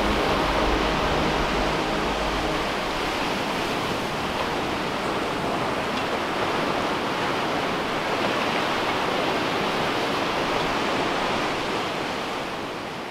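Steady wash of sea surf breaking on a beach. The tail of background music fades out in the first couple of seconds, and the surf itself fades away at the very end.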